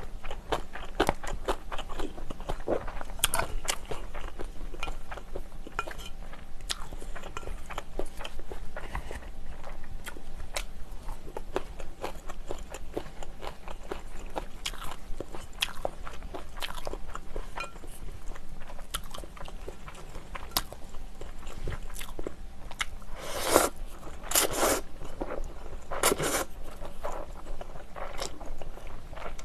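Close-up chewing of spicy Buldak stir-fried instant noodles mixed with sliced cheongyang green chili peppers, with many small wet, crunchy clicks. Three louder, longer slurps of noodles come between about 23 and 27 seconds in.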